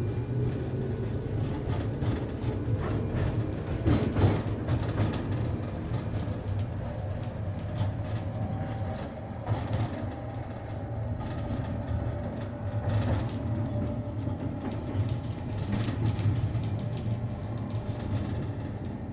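Inside a city passenger vehicle on the move: a steady low running hum with repeated loud knocks and clunks from the running gear, the heavy knocking the vehicle is known for.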